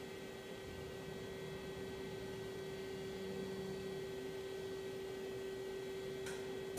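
Daewoo Puma 12L-B CNC lathe powered up and humming steadily on one strong tone, a low rumble growing slightly louder, with a brief hiss near the end.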